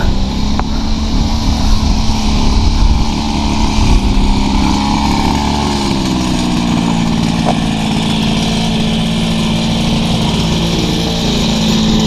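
An engine droning steadily, its pitch shifting briefly about halfway through.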